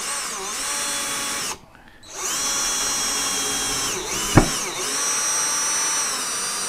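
Cordless drill-driver motor whining as it drives a screw into 3 mm metal, in two runs: a short one of about a second and a half, then after a brief pause a longer one of about five seconds with a sharp click partway through. Its speed shifts as it works, and the screw keeps spinning in place once driven fully home.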